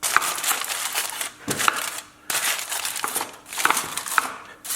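Aluminium foil crinkling and crackling as it is pulled and pressed over a casserole dish, in a few stretches with short pauses between them.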